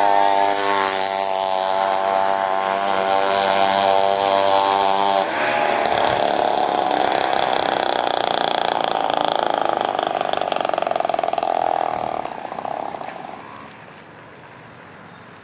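Small two-stroke scooter engines, a chainsaw engine and a weedeater engine, running at high revs. The sound is steady for about five seconds, changes abruptly, then fades away about twelve seconds in.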